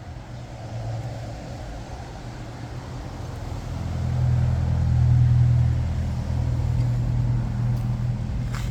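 Motor vehicle engine running with a steady low hum that swells louder about four seconds in, then eases back a little.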